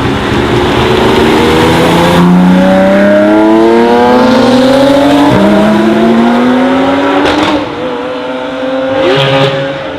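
Supercar engine accelerating hard, its pitch climbing steadily through the gears, with upshifts about two and five seconds in and again near the end, after which the note holds fairly steady.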